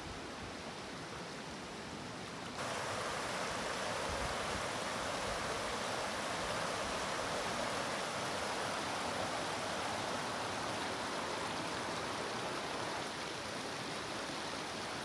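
Steady rush of water from a small woodland waterfall and stream. About two and a half seconds in it turns louder and fuller.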